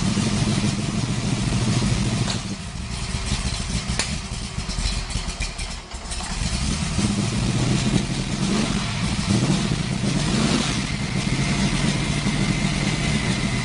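1968 Camaro's 632 cubic-inch big-block V8 running loud. Its note falls away for a few seconds, then picks back up again about six seconds in.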